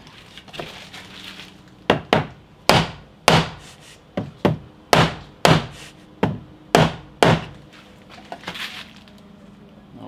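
Rubber-headed soft mallet striking a wooden block held against a door edge, about eleven blows at roughly two a second between about two and seven seconds in. The blows are driving a tight-fitting lock body into the door's mortise, and it will not go in.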